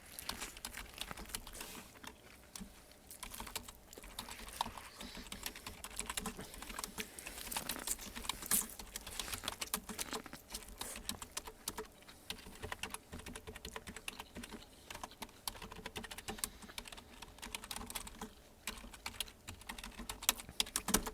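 Typing on a computer keyboard: a fast, continuous run of key clicks that pauses briefly twice.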